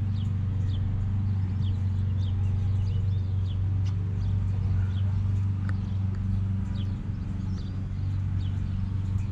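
An engine running steadily with a low, even hum, with small birds chirping over it.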